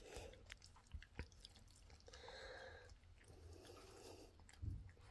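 Faint wet licking as a Rough Collie puppy laps yogurt off a rubber lick mat, with a few small clicks and a soft thump near the end.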